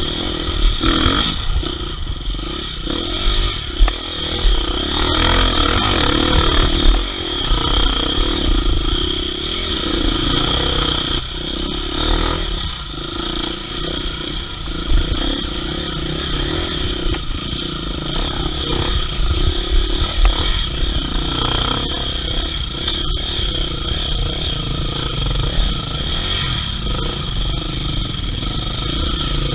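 Off-road enduro motorcycle engine running along a trail, the throttle opening and closing so the engine note rises and falls, with a few knocks and clatter from the bike over rough ground.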